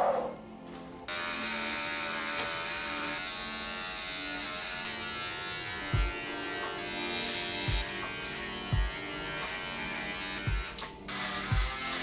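Electric razor buzzing steadily on facial hair, switching on about a second in and cutting off about a second before the end. Background music with a slow bass beat plays under it.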